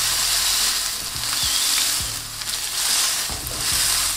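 Ground beef sizzling in hot oil in a nonstick frying pan while it is smashed flat with a burger press, the start of searing a crust. The sizzle swells and eases several times.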